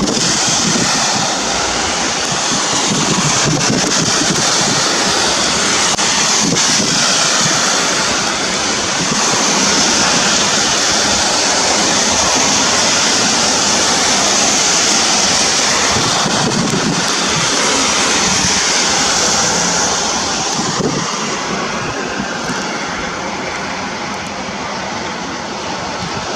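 Heavy downpour in a gusty storm: a loud, steady hiss of rain with wind buffeting the microphone, easing a little about twenty seconds in.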